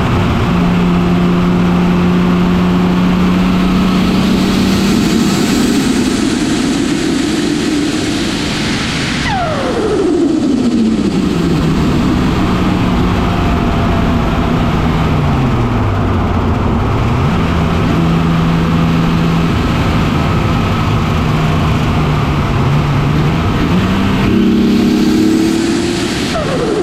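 Nissan RB25DET turbocharged straight-six running steadily at moderate revs. The engine note holds, sags and recovers about halfway through, and climbs near the end. Twice, about nine seconds in and again at the very end, a high whistle sweeps steeply down in pitch.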